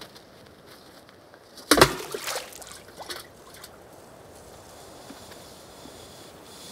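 Water splashing and sloshing as it is drawn up from a stone well on a rope: one sudden loud splash a little under two seconds in, then a few smaller splashes and drips over the next second or two.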